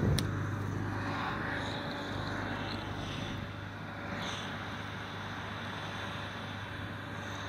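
An engine running steadily at idle, a low even hum, with a single knock just after the start.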